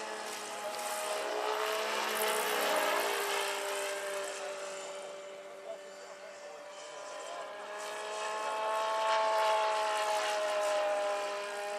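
Electric motor and rotors of a large scale-model BO-105 RC helicopter whining in aerobatic flight. The whine slides up and down in pitch and swells louder twice, about two to three seconds in and again about nine to ten seconds in.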